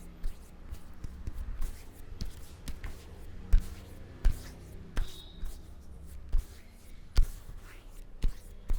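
Hands patting and slapping on a head and face during a massage: sharp, irregular pats about once a second, with rubbing of skin and hair between them.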